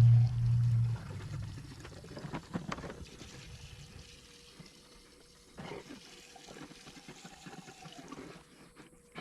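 Gasoline being poured into a Craftsman LT2000 garden tractor's fuel tank, a soft uneven trickle. A loud low hum stops about a second in.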